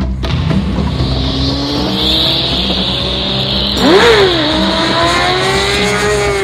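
Motorcycle engine accelerating, its pitch climbing steadily. About four seconds in, a quick rev jumps up and drops back, and then the engine runs on at a high, steady pitch. Music with a repeating drum pattern continues underneath.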